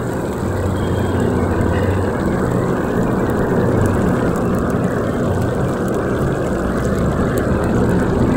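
A steady low rumble over chicken frying in hot oil in an iron kadai, with faint crackles.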